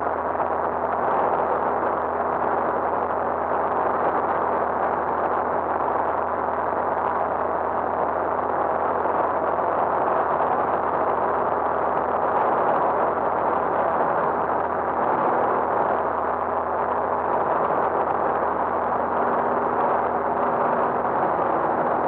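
Light aircraft's piston engine and propeller running steadily in level flight, heard inside the cabin as an even drone with rushing air noise.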